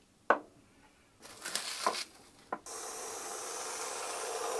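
Aerosol whipped-cream can spraying: a steady hiss of about two seconds, starting a little past halfway, after a few soft clicks and knocks.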